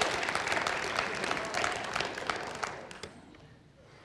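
Congregation applauding, the clapping dying away about three seconds in.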